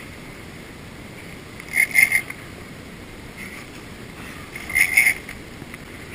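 A big conventional fishing reel under load from a hooked goliath grouper gives two short buzzing bursts about three seconds apart, each made of a few quick pulses, over steady background noise.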